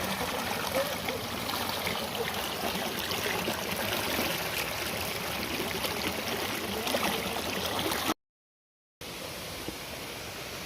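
Steady rush of water at a waterfall. About eight seconds in it cuts off to silence for about a second, then comes back quieter.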